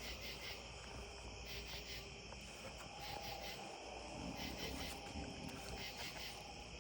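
Crickets chirping steadily in a continuous pulsing chorus.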